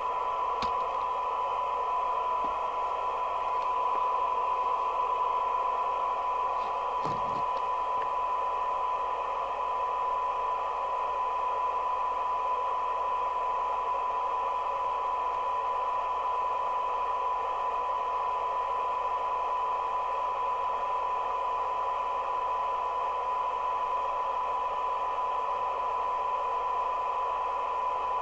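A Kernow Beta 2100 UK FM CB radio's speaker plays a steady single test tone over a bed of receiver hiss. The radio is receiving a tone-modulated test signal for a SINAD sensitivity check during receiver alignment. There are a few faint clicks near the start and about seven seconds in.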